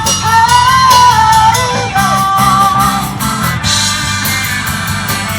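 Live rock band playing, with a singer holding a long line over electric guitar, bass and drums.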